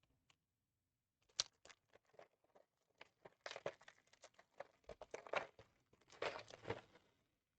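LEGO pieces being handled: soft plastic crinkling and rustling mixed with small clicks, coming in short clusters.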